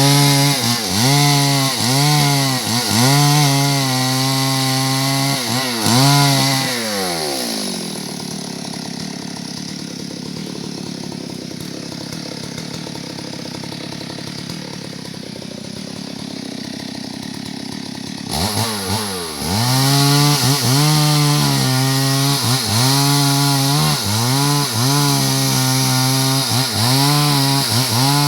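Two-stroke chainsaw cutting wood, its engine pitch dipping under load and recovering about once a second. About seven seconds in it drops to a low idle for roughly ten seconds, then revs up again near the nineteen-second mark and resumes cutting with the same rhythmic dips.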